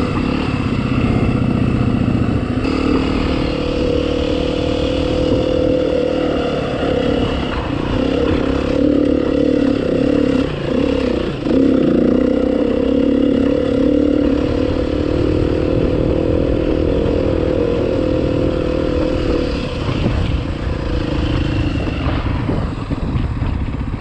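Dirt bike engine running steadily while under way on a dirt trail, its note dipping and climbing again about eleven seconds in as the throttle is eased and reopened.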